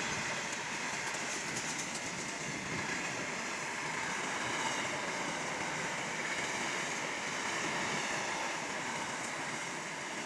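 A freight train of open steel wagons rolling past, making a steady, unbroken noise of steel wheels running on the rails.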